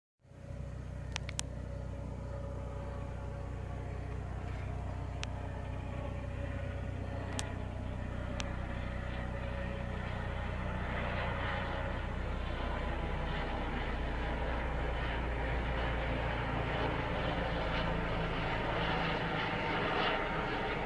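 Helicopter passing overhead: a steady engine and rotor drone that grows slowly louder. A few sharp clicks sound in the first half.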